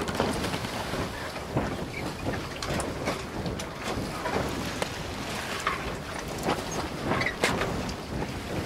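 Seaside wind buffeting the microphone over washing waves: a dense rush full of short crackles. It cuts off abruptly at the end.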